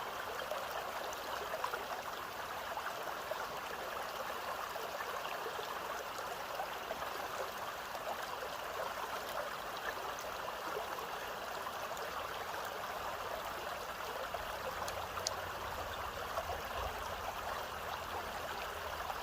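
Flowing water of a small stream, recorded close up: a steady, busy splashing rush. A faint low rumble joins in about two-thirds of the way through.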